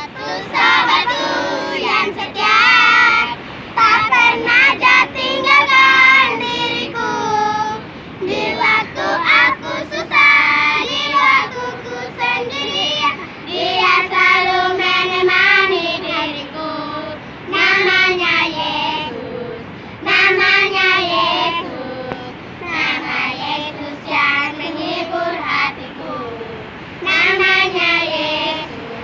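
A group of young girls singing a song together in chorus, in phrases broken by short pauses.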